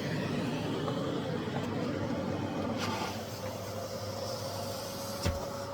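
Miele CX1 Blizzard bagless cylinder vacuum cleaner running steadily. A thin steady whine joins about halfway, and there is one sharp click near the end.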